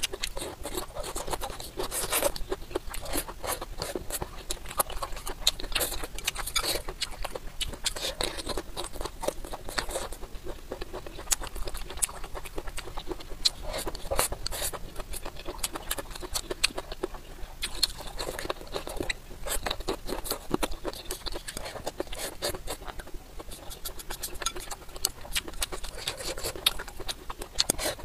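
Close-up eating sounds: chewing and mouth smacking, with chopsticks scraping and clicking against the ceramic bowl as rice is pushed into the mouth.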